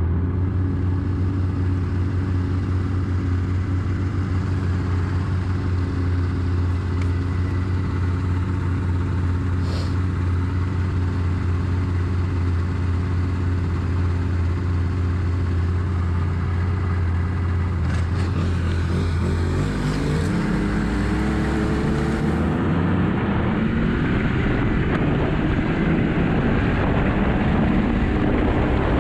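Yamaha four-stroke snowmobile engine idling steadily, then revving up about two-thirds of the way through as the sled pulls away, its pitch climbing and holding under way on the trail.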